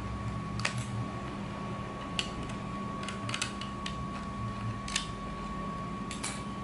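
Scattered sharp clicks and taps from handling a cordless drill's plastic housing and parts as it is taken apart, over a steady hum.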